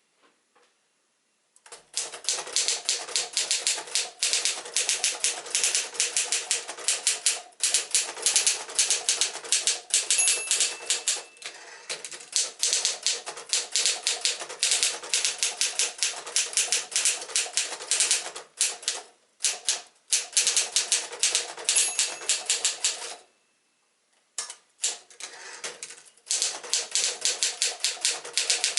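1964 Torpedo 18s portable typewriter being typed on: rapid, even keystroke clicks and typebar strikes that start about two seconds in, with a few short pauses. A short ringing tone sounds twice among the keystrokes.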